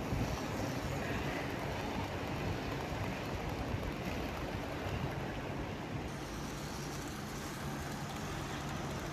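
HO-scale model train running past close by: a steady rumble of metal wheels on the track with a low, steady hum underneath.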